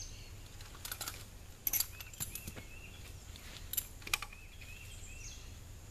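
Scattered metallic clicks and knocks as a climbing tree stand's wheel kit is unfastened and taken off its frame by hand. A bird chirps in short repeated calls in the background.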